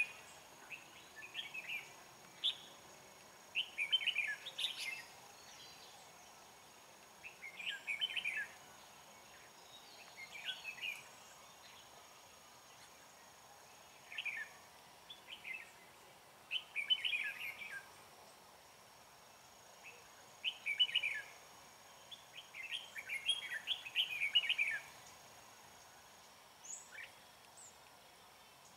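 Red-whiskered bulbuls singing short, fast warbled phrases every couple of seconds, with brief pauses between them.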